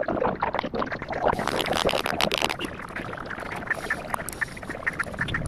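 Irregular clicking and scraping of small metal parts being handled and fitted together as a motorcycle self-starter motor is reassembled.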